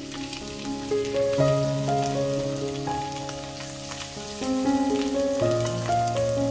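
Background music of held notes and chords that change a few times, over the steady crackling sizzle of raw chicken pieces frying in hot oil in a frying pan.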